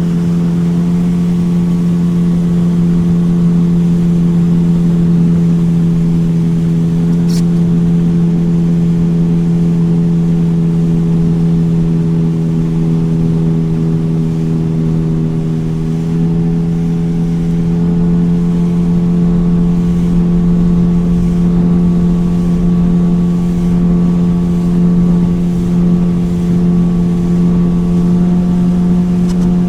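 Motorboat engine running steadily at cruising speed, one even pitched drone over a rushing haze, its note edging slightly higher about halfway through. A single brief click about seven seconds in.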